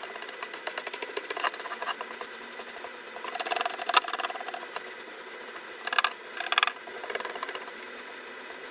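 Small scraping and clicking handling noises over a steady hiss, with louder scrapes about three and a half seconds and six seconds in.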